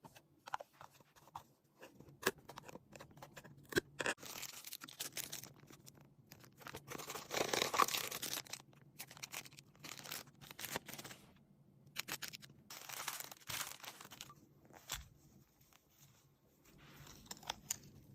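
Packaging being handled and torn open: faint rustling and crinkling, the longest burst about halfway through, among scattered small clicks and taps.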